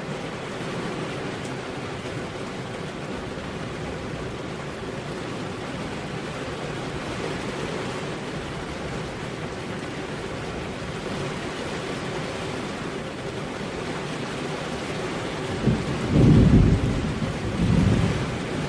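Heavy rain falling steadily on a road, an even hiss. Near the end, two short, loud low rumbles break through the rain.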